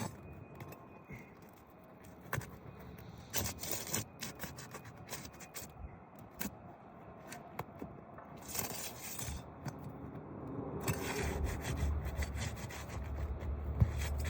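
Flat pry bar scraping and clicking against asphalt roof shingles as nails are worked loose, in scattered strokes with sharp ticks. A low rumble joins in the last few seconds.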